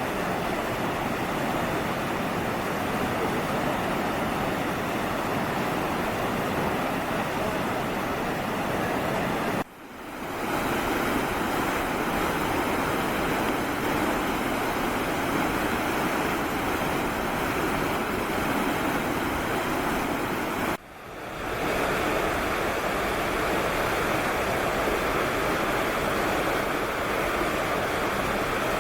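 Steady rushing of water, a continuous roar with no distinct events. It drops out briefly twice, about ten and twenty-one seconds in, each time fading back in.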